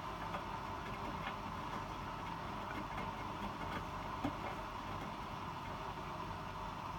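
Hotpoint WMFUG 942 washing machine in its anti-crease phase after a spin: a steady motor hum as the drum turns slowly, with a few faint light clicks, one a little louder about four seconds in.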